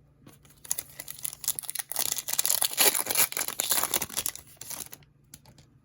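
Trading-card pack wrapper being torn open and crinkled: a dense crackling tear lasting about four seconds, loudest in the middle, followed by a few light clicks near the end.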